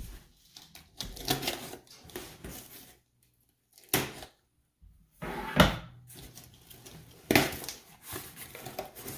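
Packing tape being cut on a cardboard shipping box and the box being handled open: scraping and rustling of tape and cardboard, with a few sharp knocks of the box.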